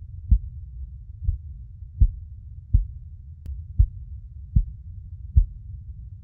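Slow, steady heartbeat: deep, muffled thumps a little under a second apart, about seventy a minute, over a constant low rumble like sound heard from inside the womb.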